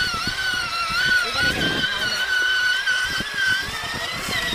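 Electric drive motor and gearbox of a child's battery-powered ride-on toy ATV whining steadily as it drives. Irregular low knocks come from its plastic wheels going over the pavement and grass.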